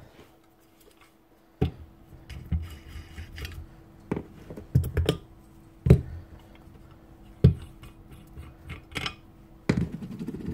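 Metal parts of a stripped-down power planer, its armature and aluminium housing pieces, being picked up and set down on a hard bench: about eight short knocks and clinks at uneven intervals, over a faint steady hum.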